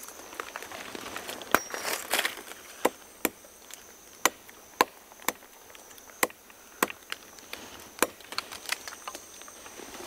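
A knife chopping into wood, a series of sharp, irregular strikes, with a steady high insect buzz behind.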